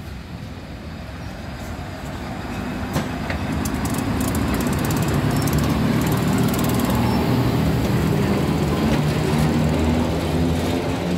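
FS E.646 electric locomotive pulling away with its train and passing close by, its steady hum growing louder over the first four seconds; a single sharp click about three seconds in.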